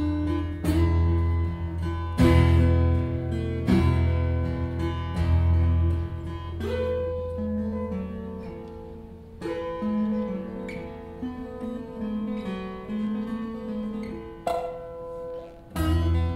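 Taylor 314CE steel-string acoustic guitar played solo fingerstyle: heavy bass notes with hard, accented attacks about every second and a half, then a softer melodic passage with the bass dropped out, and a loud struck chord near the end.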